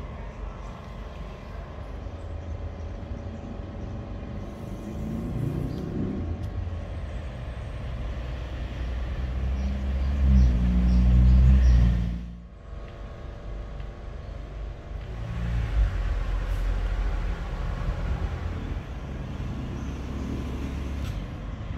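Low engine rumble of passing road traffic, building to its loudest about ten to twelve seconds in, where it cuts off abruptly, then resuming as a steadier rumble.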